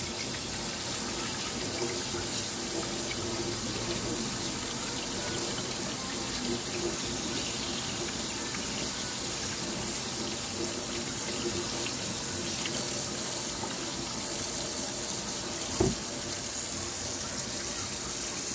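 Kitchen faucet running steadily into a stainless steel sink, the stream splashing over a hand being rinsed under it. There is one brief knock near the end.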